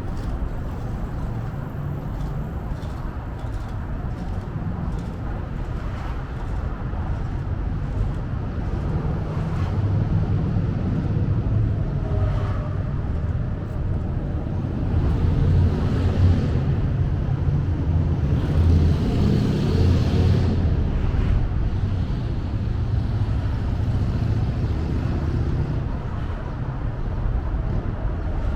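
Steady low rumble of city road traffic. It swells in the middle as vehicles pass closer and louder, then eases back.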